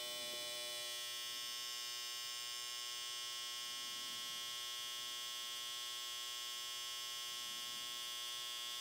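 BaByliss FX One cordless hair trimmer running at speed: a steady motor whine with many even overtones and no change in pitch. It measures about 80 dB on a sound level meter.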